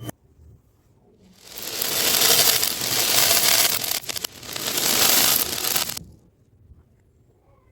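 A dense rush of many small beads or balls clattering together, in two surges, the first about three seconds long and the second about two, then it stops.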